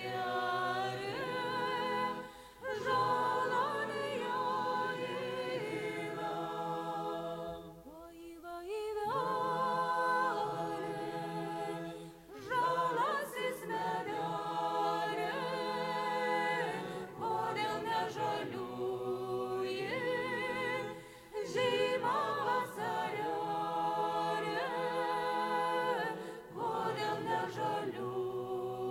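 Lithuanian folk ensemble singing a song unaccompanied, several voices together in phrases of about four to five seconds, each followed by a short break for breath.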